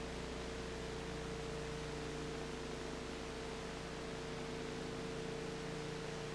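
Steady hiss with a low hum and a constant mid-pitched tone, unchanging throughout, with no other sounds: the noise floor of a soundless film transfer.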